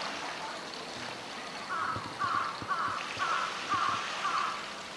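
A crow cawing in a run of six caws, about two a second, starting a little under two seconds in.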